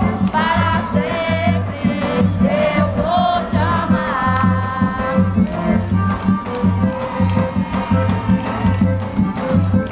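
Music with a singer's wavering, vibrato-laden voice over a steady pulsing bass and drum beat.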